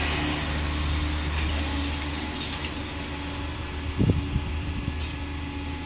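A steady low mechanical hum that slowly fades, with a dull knock about four seconds in.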